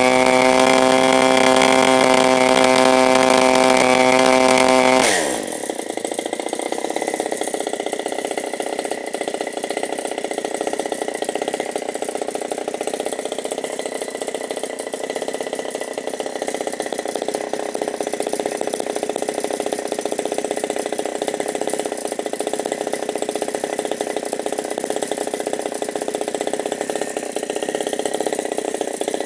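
17cc two-stroke petrol model-aircraft engine running fast on a test stand, then throttled back about five seconds in, its pitch falling quickly to a steady idle that carries on.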